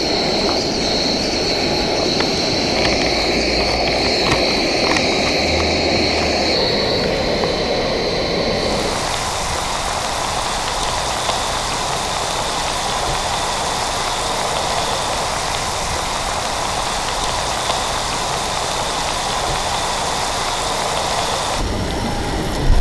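Battered hairtail pieces deep-frying in a pot of hot oil, a steady sizzle. About nine seconds in, as a battered piece goes into the oil, the sizzle turns brighter and fuller and then holds steady.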